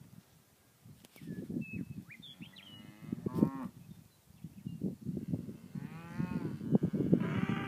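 Cattle mooing: one short call about three and a half seconds in, then longer calls from about six seconds to the end, over a low rumbling noise.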